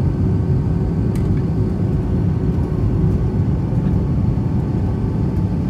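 Steady cabin noise inside a British Airways Airbus A319-131 during its descent: an even low roar of airflow and engines, with a faint steady hum running through it.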